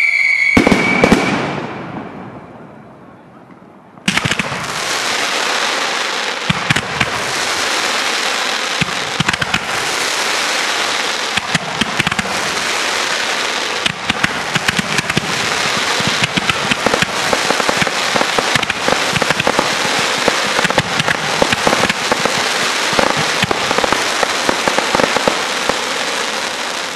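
Fireworks: a falling firework whistle ends in the first second and dies away. About four seconds in, a long, dense barrage of crackling and popping starts and keeps up to the end, peppered with sharp reports.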